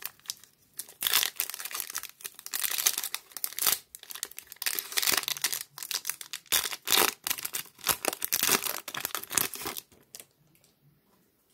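Foil wrapper of a trading-card pack being torn open and crinkled by hand: dense, irregular crackling that stops near the end.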